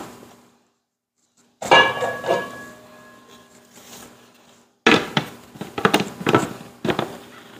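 Clear plastic lid being fitted onto a Bosch stand mixer bowl: a sharp knock about two seconds in that rings briefly, then a run of knocks and clatter as the lid is worked into place.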